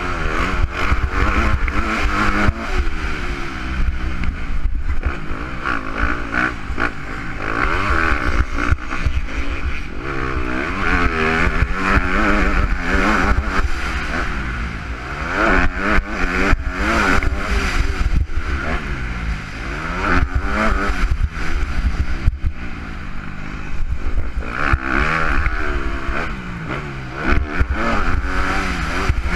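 Motocross bike engine heard from on board, revving up and falling off again and again as the rider works through the gears, with a steady low rumble of wind on the microphone and sharp knocks from the bumps.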